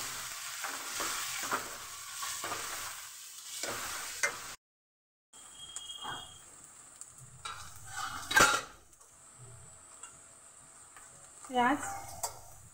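Chopped onions sizzling in ghee in a steel kadhai while a steel ladle stirs and scrapes against the pan. The sizzle is strong for the first few seconds, cuts out briefly, then goes on more quietly, with a sharp knock of the ladle on the pan a little past the middle.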